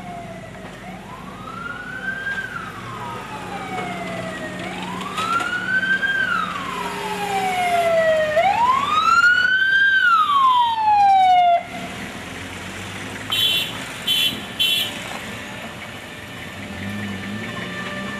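A vehicle siren wailing, its pitch rising and falling slowly about every four seconds, then cutting off suddenly about two-thirds of the way through. It is followed by three short high beeps, over the hum of passing traffic.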